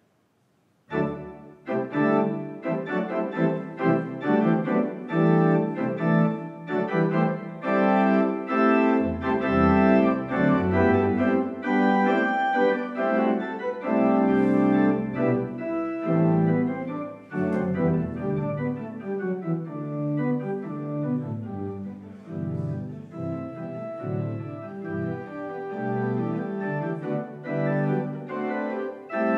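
Church organ (an Allen organ) starts playing about a second in, after near silence, holding chords and moving lines, with deep pedal bass notes joining at times.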